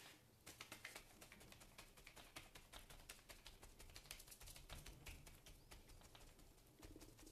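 A piece of sponge loaded with acrylic paint dabbed quickly and repeatedly onto paper on a table: faint soft taps, several a second.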